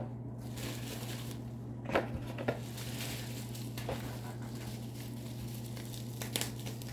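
Hands handling packaging: soft rustling and a few short clicks and taps at irregular intervals, over a steady low hum.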